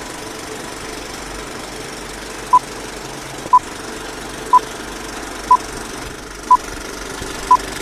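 Old-film leader countdown effect: a short high beep once a second, six times from about two and a half seconds in, over a steady whirring, rattling film-projector noise.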